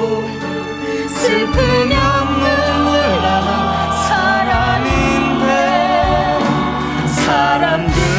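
Slow musical-theatre ballad: sung voices holding long, wavering notes over a steady instrumental accompaniment.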